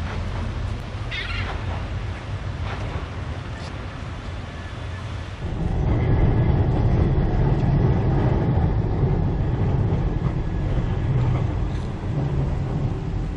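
Wind buffeting the microphone at first, then, about five seconds in, a city tram rolling past on street rails with a low rumble and a faint steady whine, easing off near the end.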